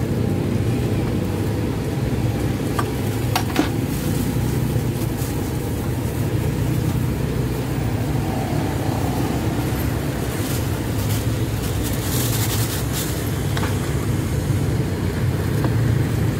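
Steady low rumble of road traffic, with a few light clicks and clinks from utensils and plastic bags at the soup cart.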